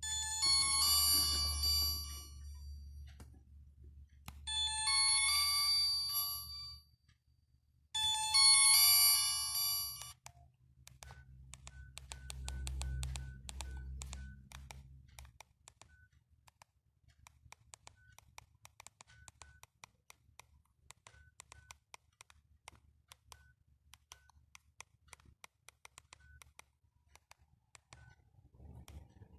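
Alcatel One Touch 1013D mobile phone playing a short electronic ringtone melody three times over the first ten seconds, over a low hum. After that come many small button clicks with short faint beeps, the phone's keypad being pressed.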